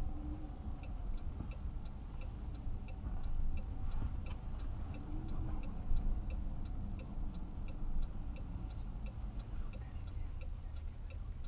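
A car's indicator relay clicking steadily inside the cabin, about two and a half clicks a second, over the low rumble of the car rolling slowly.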